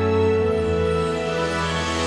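Background music of slow, sustained held chords.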